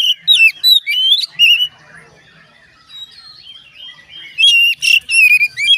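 Oriental magpie-robin (kacer) singing: loud, rapid bursts of whistled, warbling phrases. One run comes in the first second and a half and another near the end, with softer notes between.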